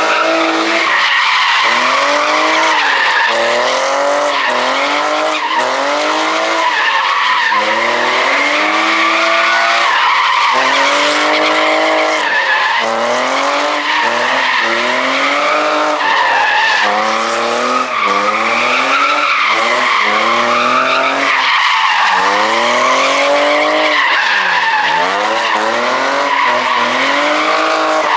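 A car sliding on spinning tyres: continuous tyre squeal with the engine revving up and dropping back over and over, roughly once a second.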